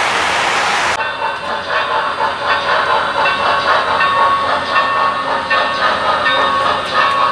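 An even rushing hiss cuts off suddenly about a second in. After it, a model train runs on the layout's track: a rattling, clattering run of wheels over rail joints, with thin ringing tones and loudness that swells and dips.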